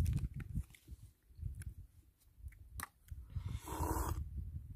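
A man takes a noisy sip from a small glass, about three and a half seconds in. Under it, wind rumbles on the microphone, with a few faint clicks.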